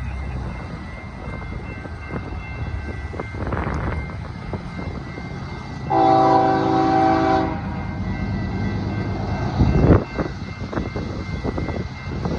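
Freight diesel locomotives rumbling as they approach, with one multi-tone horn blast lasting about a second and a half just past the middle. A brief low thump follows a couple of seconds later.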